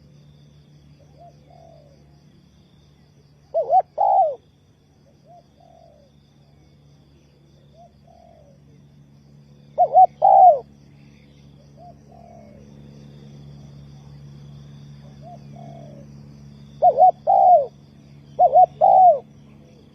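Spotted dove cooing: loud phrases of two or three coos, the last note drawn out, repeated every few seconds, with fainter coos in between. A faint steady low hum lies underneath.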